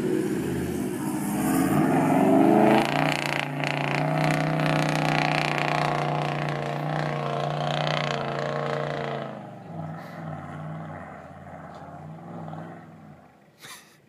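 Toyota LandCruiser 76 Series 4.5-litre twin-turbo V8 diesel engine revving up under load for about three seconds, holding steady as the vehicle climbs, then fading away after about nine seconds as it drives off into the distance.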